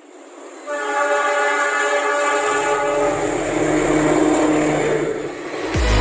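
Train horn sounding one long, steady blast, with a low rumble of the passing train joining partway through. Electronic music with a beat starts right at the end.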